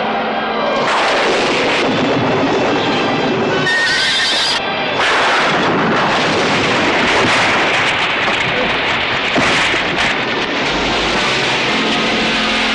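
Film battle-chaos sound effects: horses whinnying over a dense, loud din of noise, with music underneath.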